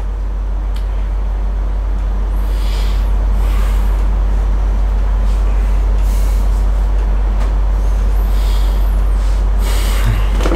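A deep, steady rumbling drone with a hiss over it, swelling twice into airy whooshes, once about a quarter of the way in and again near the end.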